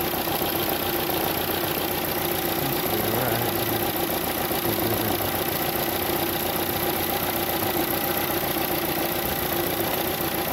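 Ford Fiesta Zetec S engine idling steadily, heard at the open engine bay, on a newly fitted gearbox-end engine mount that the owner finds is working.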